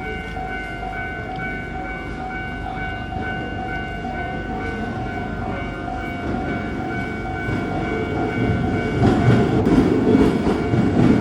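Japanese level crossing warning bell ringing in a steady repeating pattern. From about nine seconds in, a train runs over the crossing and the rumble and clacking of its wheels grow louder.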